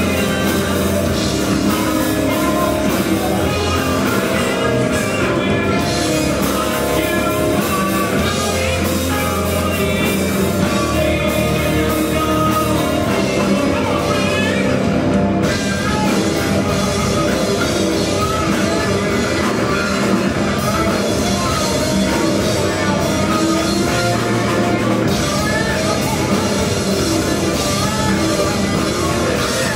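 Live alternative metal band playing loud and steady: distorted electric guitars and bass over a drum kit.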